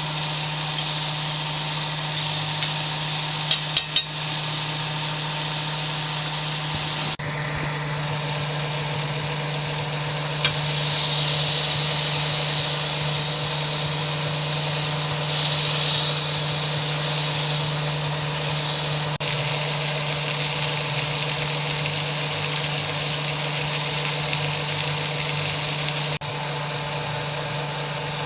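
Deer steak sizzling in butter in a frying pan, a steady hiss that swells louder in the middle, over a steady low hum. A few light clicks of a utensil come about four seconds in.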